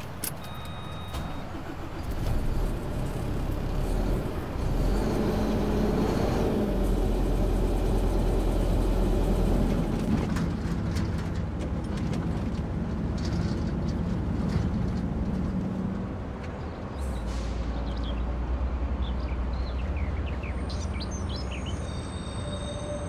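Truck's diesel engine and road noise heard inside the cab while the truck drives, growing louder about two seconds in as it gets moving, with the engine note shifting as it goes.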